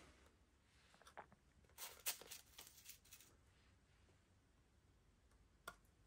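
Plastic spoon scraping in a plastic candy tray and rolling a scoop of whipped candy through a cup of candy sprinkles: a second or so of light scratchy crackling about two seconds in, with a few soft clicks before and one near the end, otherwise near silence.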